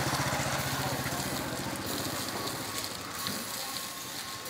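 A small motorbike engine running, fading away about three seconds in, with a steady hiss underneath.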